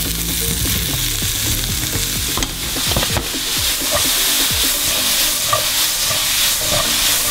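Onion, garlic, halved cherry tomatoes and capsicum sizzling in a non-stick frying pan while being stirred and scraped with a wooden spoon, the spoon knocking against the pan now and then.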